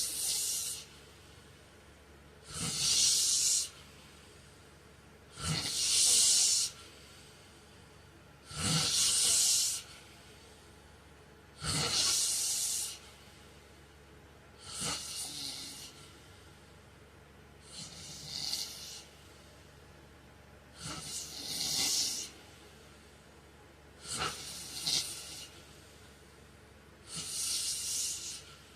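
A man snoring in his sleep, one noisy breath about every three seconds. Each breath is a hissing rush of air about a second long, with a short low rasp as it starts.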